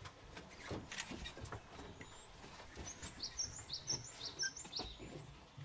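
A bird calling a quick run of about eight short, high, repeated notes about three seconds in, over scattered sharp clicks and a faint low rumble.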